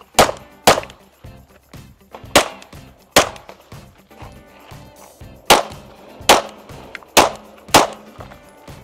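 Pistol shots fired in quick pairs, eight shots in all: double taps on each target, with short pauses between pairs as the shooter moves to the next target.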